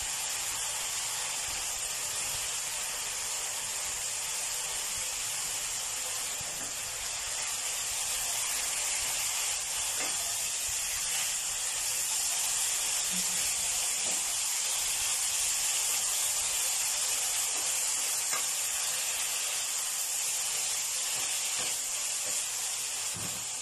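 Stir-fry of minced pork, amaranth greens and holy basil sizzling in a wok with a steady hiss, cooked without oil, with a few faint taps as it is stirred.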